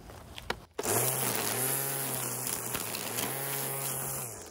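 Ryobi 24V cordless electric string trimmer, running on its 24V lithium battery, starts up about a second in and runs with a steady high buzz while the line cuts weeds. Its pitch sags briefly once in the middle, and it winds down near the end.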